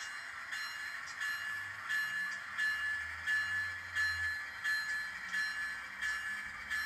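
Model railroad bell ringing in an even, steady beat of about one and a half strikes a second. A faint low hum from the approaching model diesel locomotive swells in the middle.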